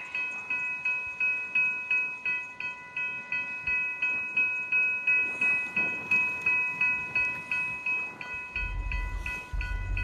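Railway level-crossing warning bell ringing steadily, about three strokes a second. A low rumble comes in near the end.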